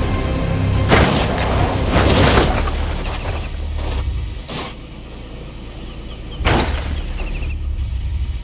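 Dramatic background music with several heavy boom and crash sound effects: big hits about a second in and around two seconds, a shorter one mid-way, and another about six and a half seconds in.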